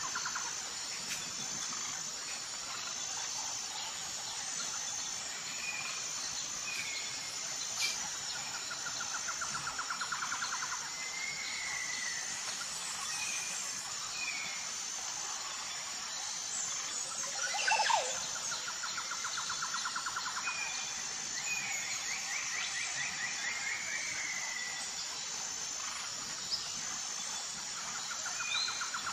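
Outdoor ambience of birds and insects: scattered short bird chirps, repeated rattling trills a second or two long, and a steady high insect drone, with one sharp louder sound about eighteen seconds in.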